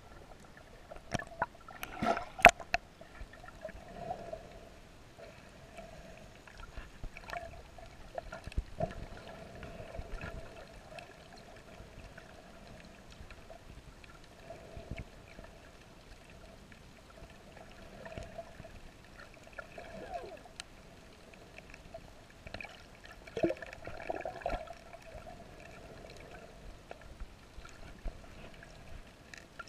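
Underwater sound picked up by a GoPro in its waterproof housing: muffled gurgling and bubbling with scattered sharp clicks, and louder bursts about two seconds in and again about three quarters of the way through.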